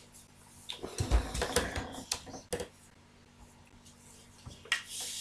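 Handling noise on a drawing desk: a low thump about a second in, then a quick run of clicks and knocks, then a short rustle near the end.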